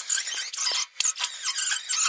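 High-pitched wavering metal squeal in two bursts with a short break just under a second in, from sheet metal being worked for a rust-repair patch.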